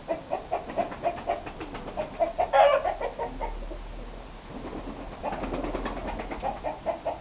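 Chickens clucking in a steady run of short notes, about four a second, with one louder squawk about two and a half seconds in.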